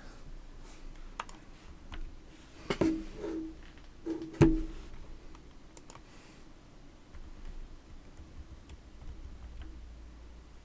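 Typing on a computer keyboard: scattered clicks and taps, with a couple of louder knocks about three and four and a half seconds in.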